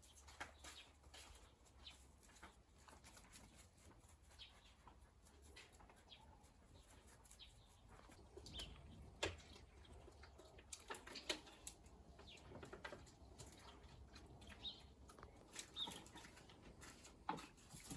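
Near silence: faint scattered clicks and rustles, with a few faint short chirps now and then.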